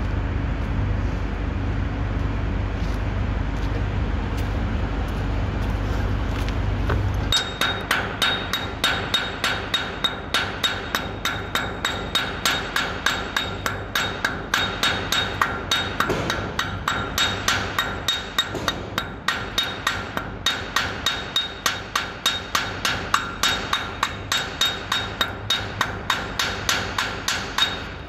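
A steel chipping hammer striking a welded steel clip and its bent plate in quick, even blows, about two or three a second, each blow ringing metallically: slag being chipped off fresh 6011 welds. The blows start about seven seconds in, after a steady low rumble.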